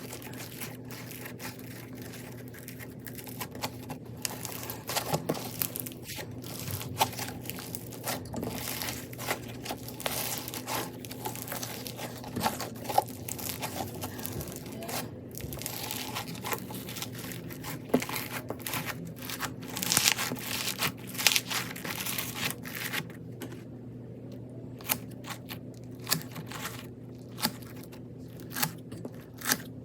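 Slime packed with more crunchy beads than slime being squeezed and worked by hand, giving a dense, irregular crunching and crackling, over a faint steady low hum.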